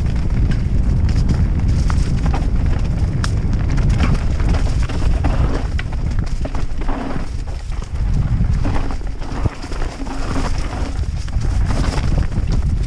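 YT Capra enduro mountain bike descending a rocky dirt trail at speed: tyres rolling over stones and roots under a constant low rumble, with many sharp rattles and clacks from the bike as it hits the rocks.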